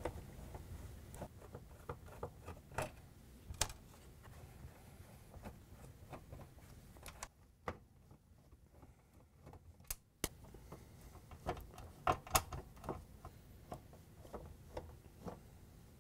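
Faint, irregular clicks and light scrapes of a Phillips screwdriver backing small screws out of a dishwasher dispenser assembly mounted in the door's sheet-metal inner panel, with a short quiet spell about halfway through.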